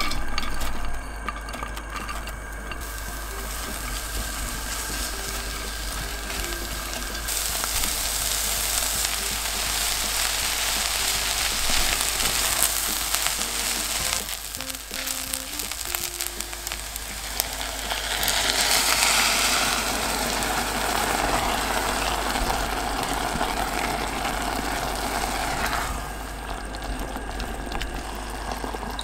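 Diced carrots and cooked rice sizzling as they are stir-fried in perilla oil in a pot and stirred with a silicone spatula. The sizzle grows louder about seven seconds in and eases near the end.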